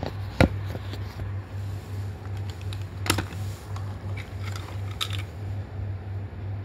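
Plastic Plarail toy train car being handled: a sharp knock about half a second in, then a few lighter clicks and rattles as the car is gripped and lifted off the track, over a steady low hum.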